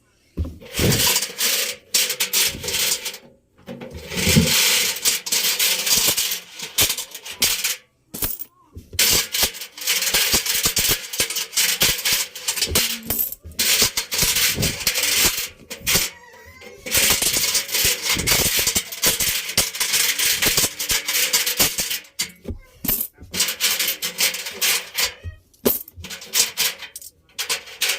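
Coins and other small metal objects clattering and rattling inside a turning Electrolux washing machine drum, in long dense runs broken by brief pauses.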